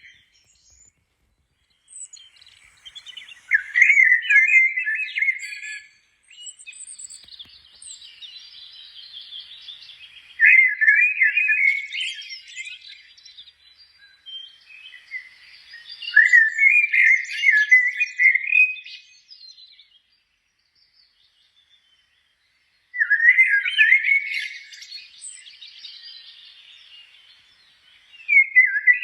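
A songbird singing: bursts of fast twittering, each two to three seconds long, repeated about every six seconds, with quieter chattering between them. Five bouts, the last starting near the end.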